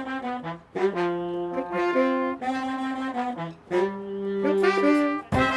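A New Orleans-style horn section of trombones, trumpets and saxophones plays a swing-funk phrase in held notes with short breaks. Near the end the full band comes in louder with drums.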